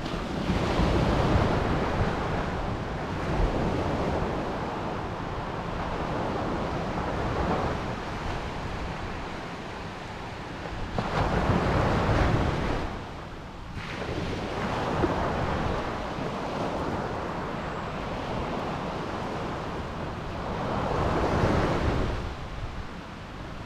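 Ocean surf washing in and out as a rushing noise that rises and falls. It swells loudest three times, about a second in, near the middle and near the end, with smaller swells between.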